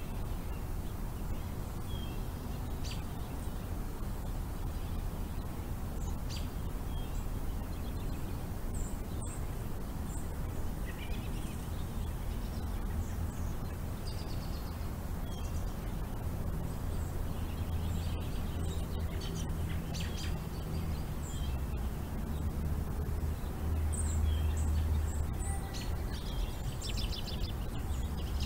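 Scattered short bird chirps and calls over a steady low rumble, with a rapid trill near the end.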